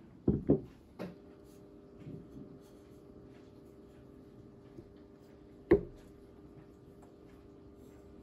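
Two sharp knocks of a glass bottle and glass being set down on a wooden table, a little soft handling, then a single sharp knock about five and a half seconds in as the cork stopper is pushed back into the Kilchoman Machir Bay whisky bottle.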